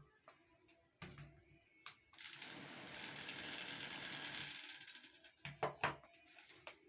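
Small mechanism clicking and rattling: a few scattered clicks, a steady rattling whir for about two seconds in the middle, then a quick cluster of knocks near the end.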